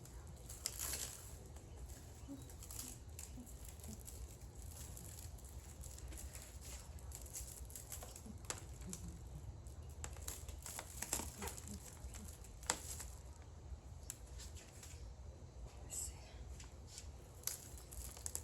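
Crinkling and rustling handling noises with scattered sharp clicks, over a steady low hum.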